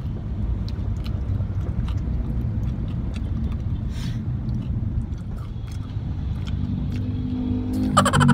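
Steady low road rumble inside a moving car's cabin, with faint clicks of chewing and a paper food wrapper. A louder pitched sound cuts in near the end.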